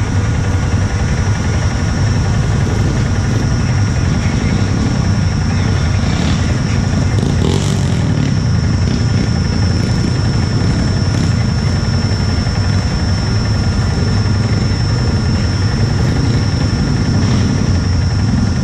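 ATV engine running steadily under load as the machine churns through a deep mud hole.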